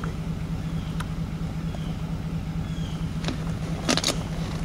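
Truck engine idling steadily with a low throbbing hum. A few sharp clicks and knocks sound in the second half, the loudest cluster about four seconds in.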